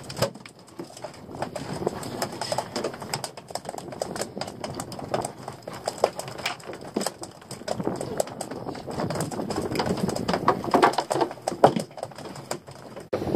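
Freshly landed mackerel flapping on the deck of a small boat: irregular bursts of rapid tapping and knocking, busiest a few seconds before the end.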